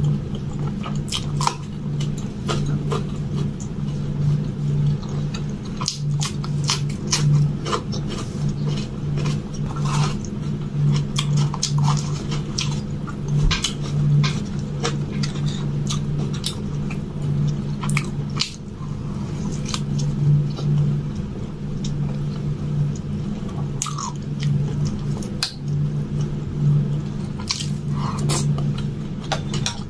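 Close-miked chewing of soft, wet food (rice with spinach curry and puri), with many short wet mouth clicks and smacks scattered throughout.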